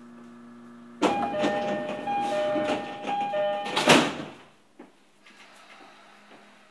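E231 series commuter train's door chime, two alternating tones repeating, sounding as the sliding passenger doors close. The doors shut with a loud bang just before 4 s in. Before the chime, the stopped train's equipment gives a low steady hum.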